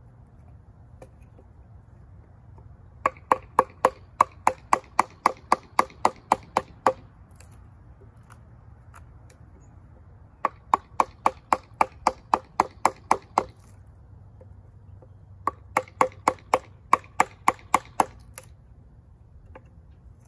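Wooden mallet striking a chisel to hollow out a cedar bowl blank. It comes in three runs of quick, even blows, three to four a second, each run lasting about three or four seconds, with pauses between.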